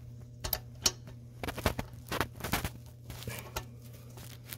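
A nut being threaded by hand onto a stud at a turbo exhaust flange: irregular small metallic clicks and scrapes as fingers turn it, over a steady low hum.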